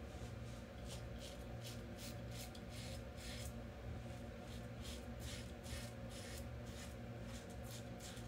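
Double-edge safety razor with an open-comb head scraping through lathered stubble on the neck: faint, short rasping strokes, about two or three a second.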